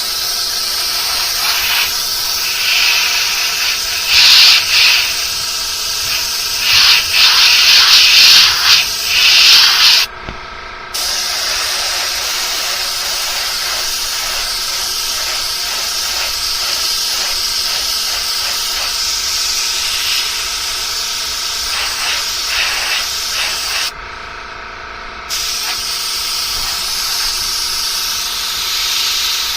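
Airbrush spraying paint: a steady hiss of air with louder surges in the first third, stopping twice for about a second when the trigger is let go.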